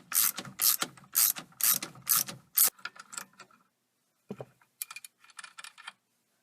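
Socket ratchet clicking as it backs off the steering-wheel nut: a run of quick strokes, about two a second, for the first two and a half seconds, then fainter, scattered clicks after a short pause.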